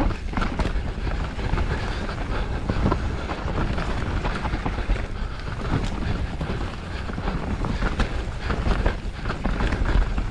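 Mountain bike descending a rough enduro trail at speed: tyres rolling over dirt and rocks, and the bike rattling with a constant run of small knocks and clatters.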